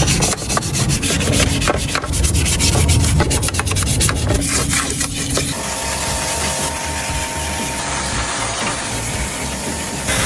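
Hand work on the radiator fan's electric motor during a repair of its collapsed bearing: rapid rubbing and scraping strokes for about the first half, then a steadier rubbing hiss with a faint hum underneath.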